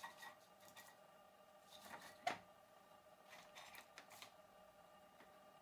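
Very quiet: faint clicks and ticks from the Bittle robot dog's small hobby servos shifting its legs as the ground beneath it tilts, with one sharper tap about two seconds in.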